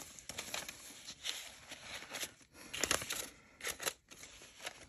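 Paper banknotes and a frosted plastic cash envelope rustling and crinkling as bills are counted and slid in, in irregular rustles with small clicks.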